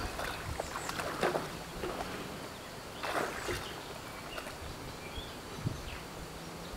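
Muddy puddle water sloshing and splashing as a Siberian husky wades and lies down in it, with a short splash about a second in and a longer one about three seconds in.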